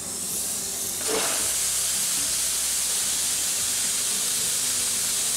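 Raw turkey sizzling and hissing as it goes into a 4-gallon cast iron Dutch oven preheated to 500 degrees. The hiss builds as it goes in, gets louder about a second in, then holds steady as the bird sears against the hot iron.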